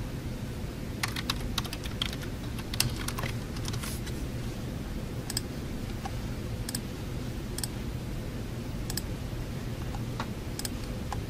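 Typing on a computer keyboard: a quick run of keystrokes in the first few seconds, then single keystrokes every second or so, over a steady low room hum.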